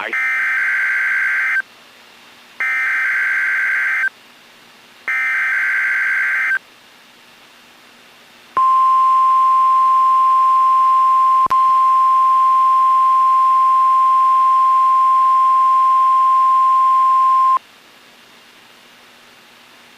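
NOAA Weather Radio Required Weekly Test signal: three SAME digital header bursts of about a second and a half each, then the steady single-pitch 1050 Hz warning alarm tone held for about nine seconds, with a brief click partway through.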